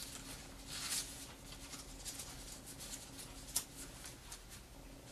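Soft rustling and scraping of origami paper as fingers press and crease a fold against the table, with one sharper paper click about three and a half seconds in. A faint steady hum runs underneath.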